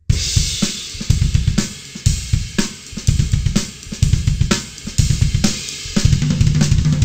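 Acoustic drum kit played fast: a double-stroke lick that mixes hand strokes on the snare with rapid double bass drum strokes, under cymbal wash, with sharp accents about twice a second.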